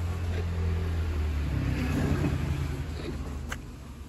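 A car engine running, a steady low hum that shifts in pitch about halfway through and fades toward the end.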